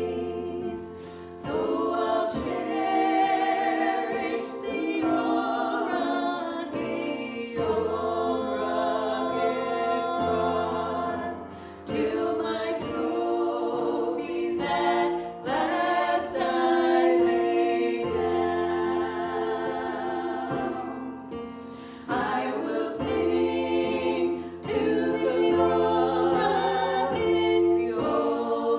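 Voices singing a gospel worship song together in long held phrases, over steady low accompanying notes.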